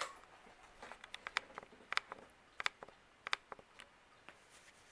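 Six-blade 1993 Fasco Gulf Stream ceiling fan running faintly on its low speed, with scattered light ticks.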